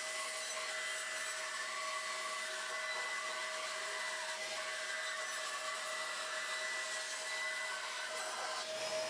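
Bandsaw running steadily while its blade cuts through thick stacked panels of walnut and exotic hardwoods, a constant hum with a faint steady whine.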